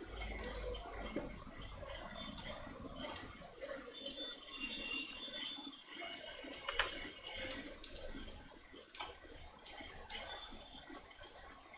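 Faint, irregular clicks of a computer mouse, roughly one or two a second, over low room noise.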